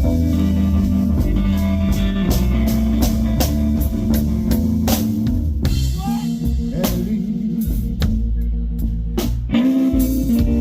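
A live blues band playing: guitar over a drum kit, with regular drum hits.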